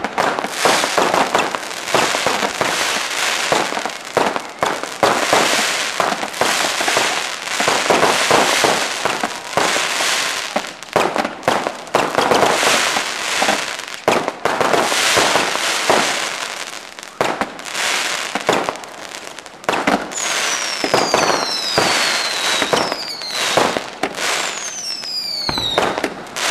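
Fireworks display: a dense run of bangs and crackling bursts, followed in the last few seconds by several high whistles falling in pitch.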